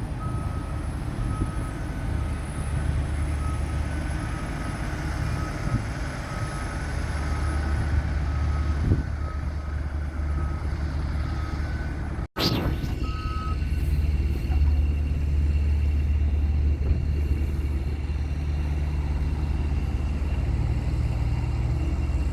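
A heavy construction vehicle's engine running, with its backup alarm beeping steadily. The sound breaks off abruptly about twelve seconds in. The beeping stops soon after while the engine keeps running.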